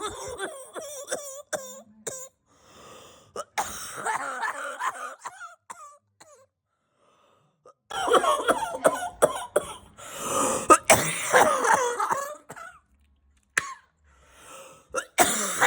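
A person coughing and clearing their throat over and over, in several loud fits, with a silent break about six to eight seconds in.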